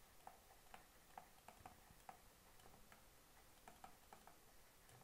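Faint, unevenly spaced clicks of a stylus tapping on a tablet screen during handwriting, two or three a second.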